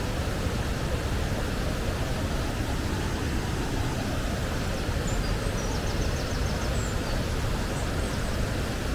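Steady rush of fast-flowing water in a rocky canyon, a full even roar with no breaks. Between about five and eight seconds in a small bird adds a few faint high chirps and one quick trill.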